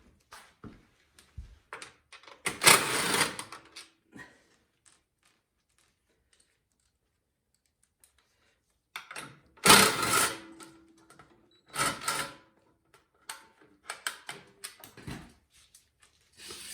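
Clicks, knocks and clatter of hand tools and metal and plastic parts as bolts are taken out of a snowblower's engine cover. There are louder clanks about three, ten and twelve seconds in, and a quiet pause in the middle.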